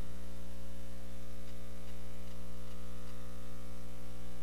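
Steady electrical mains hum with a buzzy stack of overtones and a faint hiss, from the room's audio or recording system, with a few very faint clicks.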